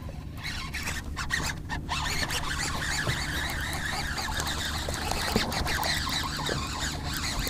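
Fishing reel being cranked fast to bring in a hooked fish: a dense, fine ticking whir that starts about half a second in, briefly breaks off near two seconds, then carries on. A steady low hum runs beneath it.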